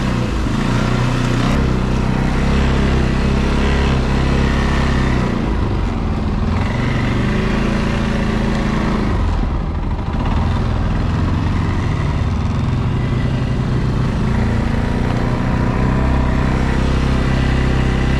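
ATV engine running under way, its pitch rising and falling with the throttle and easing off briefly twice in the middle.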